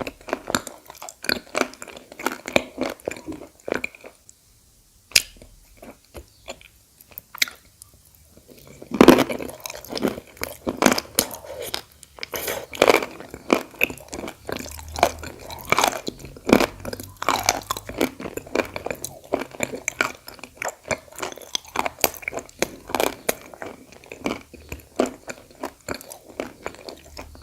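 Close-miked biting and chewing of edible khawa clay: a dense, irregular run of dry crunches, easing off briefly a few seconds in, then louder again from about nine seconds in.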